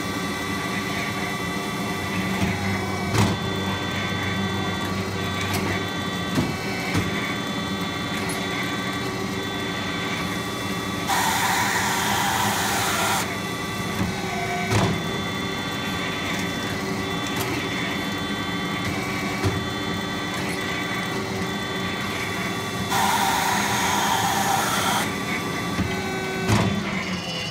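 WF Wells F1620 horizontal automatic band saw running through a cut, a steady mechanical hum with several steady tones and an occasional click. A hiss lasting about two seconds rises over the hum twice, about eleven seconds in and again about twelve seconds later.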